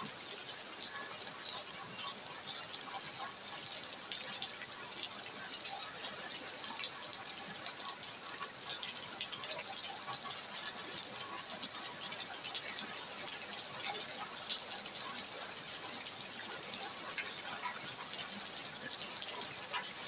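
Steady rain falling, a continuous hiss with many close drop ticks and splashes scattered through it.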